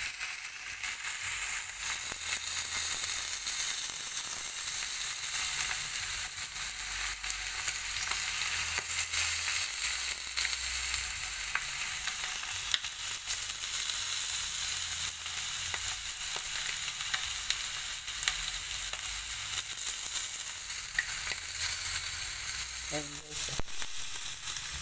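Thick bone-in beef steak searing in hot oil in a black skillet: a steady sizzle with frequent small crackles and pops.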